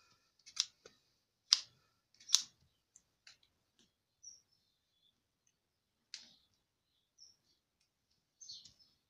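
Sharp clicks and light knocks from small metal engine parts of a BSA Bantam being handled: three louder ones in the first two and a half seconds, then a few faint scattered ticks.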